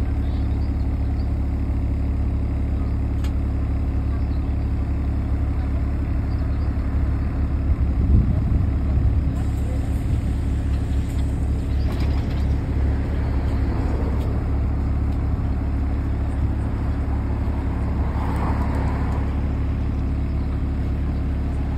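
LiAZ-5292 city bus standing at a stop with its engine idling, a steady low hum, with a brief louder low rumble about eight seconds in.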